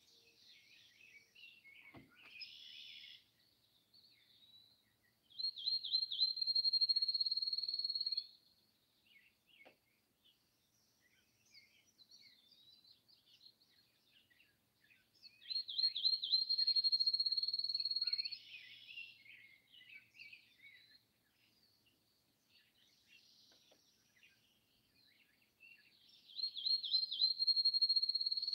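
A songbird sings the same song three times, about ten seconds apart: a few quick notes that run into a long, even, high trill. Other birds chirp softly between the songs.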